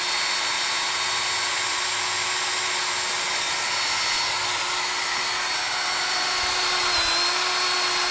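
Cordless drill running steadily under load as its bit bores a hole into a wooden board, with a steady motor whine and the hiss of the bit cutting wood. The pitch dips briefly near the end.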